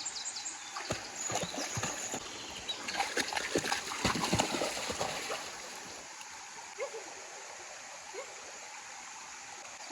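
Splashing and sloshing in water over the steady rush of a stream. The splashes are busiest in the first half and die down after about five and a half seconds.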